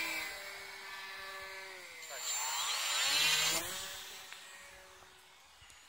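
Motor and propeller of a radio-controlled foam flying-wing combat plane whining at high throttle. The pitch drops as the plane flies away. About two seconds in, a louder close pass follows, with whines rising and falling and crossing each other, then the sound fades.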